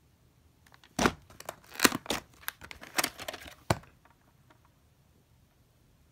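Plastic VHS clamshell case being opened and the cassette handled: a run of sharp plastic clicks and rattling that starts about a second in and lasts under three seconds.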